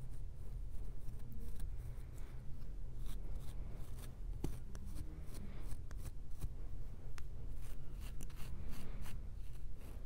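Fingernails and a plastic fine-tooth comb scratching through short, coiled hair on a flaky, dandruff-covered scalp: many short, irregular dry scratches. Slow, heavy breathing rises softly every few seconds underneath.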